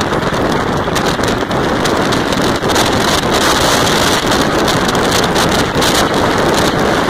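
Wind rushing over the microphone of a moving vehicle, mixed with tyre and road noise on a dirt road; a loud, steady rush throughout.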